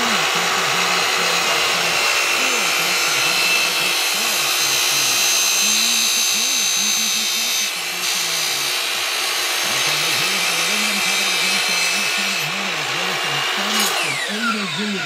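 Miter saw with a 100-tooth Tomax aluminum-cutting blade running steadily while cutting through an aluminum stair post. About a second before the end the saw is released, and the blade winds down with a falling whine.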